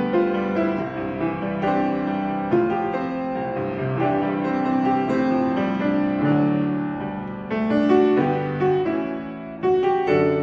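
Grand piano played solo: a slow hymn arrangement in sustained chords and flowing notes, swelling louder about eight seconds in.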